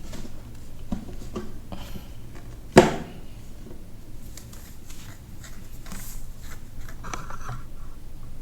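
Cardboard card boxes and cards being handled and set down on a table: a series of light taps and rustles, with one sharp knock about three seconds in.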